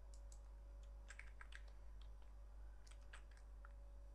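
Faint, irregular clicking of a computer keyboard and mouse, about a dozen light clicks, over a steady low hum.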